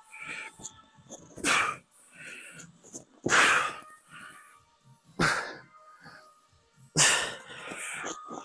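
A man's sharp, forceful exhalations, four of them about two seconds apart, one with each rep of a set of dumbbell curls.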